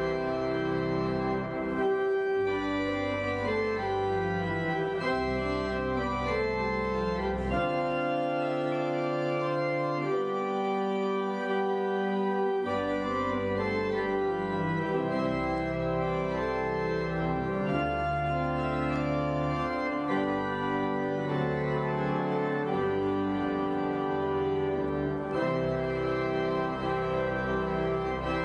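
Church organ playing slow, sustained chords that change every second or two; the lowest bass notes drop out for about four seconds near the middle.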